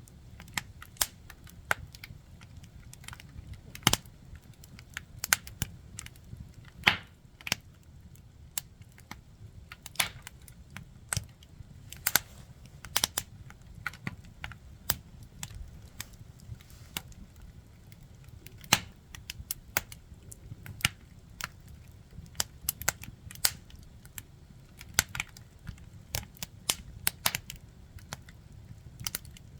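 Firewood burning, crackling and popping irregularly with sharp snaps, over a low steady rumble of the fire.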